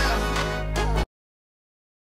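Background music that cuts off suddenly about a second in, leaving dead silence.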